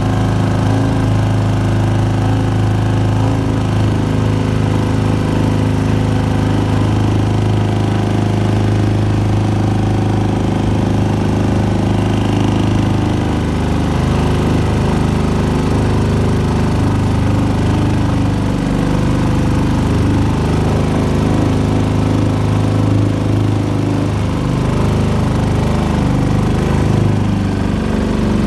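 6.5 hp Predator single-cylinder four-stroke gas engine running steadily at cruising throttle, driving a small boat across shallow water.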